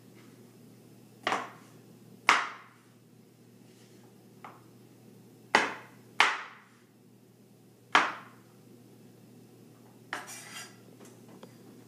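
Kitchen knife chopping potatoes on a cutting board: about half a dozen sharp, separate knocks at uneven intervals, then a short scrape near the end.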